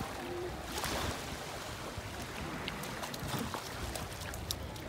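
Steady rush of sea water and wind, with a low rumble and a few faint clicks.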